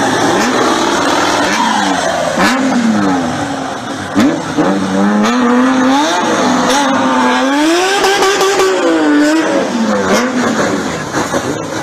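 Engine revved hard while drifting, its pitch climbing and falling again and again, over tyre noise from the sliding wheels.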